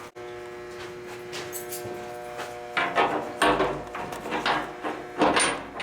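Cast iron door clamp clanking against the steel boiler door as it is fitted, a handful of sharp metal knocks in the second half, over a steady hum.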